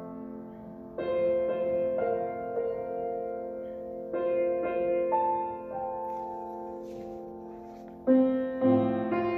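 Grand piano playing a slow passage of held chords, each struck and left to ring and fade. A louder chord comes near the end.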